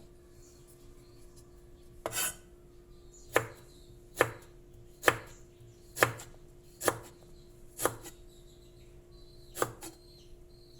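Kitchen knife cutting ginger into strips on a cutting board: about eight sharp, separate knife strikes, roughly one a second, after a short scraping sound about two seconds in.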